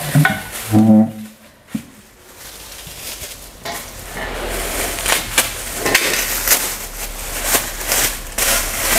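Plastic packing wrap crinkling and rustling as metal chair-frame parts are unwrapped, with many short crackles that thicken over the last few seconds.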